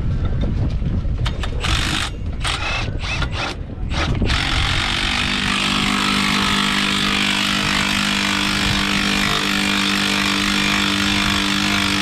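Cordless impact driver on a UTV's wheel and race jack: several short rattling bursts in the first four seconds as it works the lug nuts. From about five seconds in it runs without a break, a steady whine over a hiss, as it drives the F-O-A Race Jack's screw.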